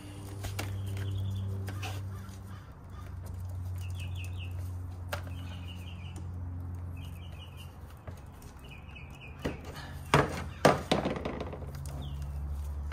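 Pliers prying open a crimped battery-cable terminal: several sharp metal clicks and snaps about ten to eleven seconds in. Under it runs a steady low hum, with short bird chirps in the background.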